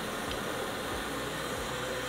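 Steady hiss of a pot of water at the boil on a portable gas burner.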